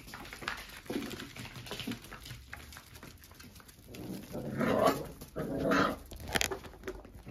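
Whippet puppies play-fighting over toys, with scuffling and small vocal noises, then two louder growls a little past the middle.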